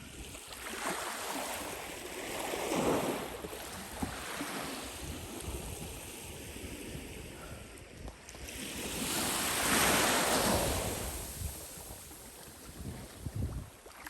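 Waves washing onto a beach in two slow swells, the louder one about two-thirds of the way through, with wind on the microphone.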